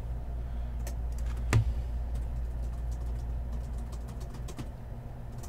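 Computer keyboard keys being typed one at a time: scattered single clicks, one louder clack about one and a half seconds in, over a steady low hum.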